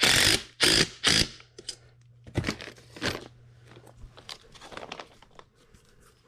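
DeWalt 20V cordless impact driver run in short bursts, three in quick succession and then two more, tightening the mounting-bracket bolts on a blower motor. Lighter clicks and rattles follow as the motor is handled.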